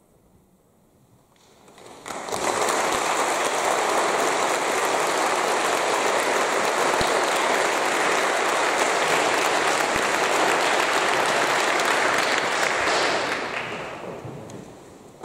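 Audience applauding: after a brief quiet, clapping breaks out about two seconds in, holds steady for about ten seconds, then dies away near the end.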